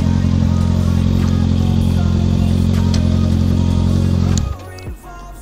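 Kawasaki ZX-6R sport bike's inline-four engine idling steadily. A little over four seconds in the engine sound cuts off abruptly, leaving a much quieter mix with faint music.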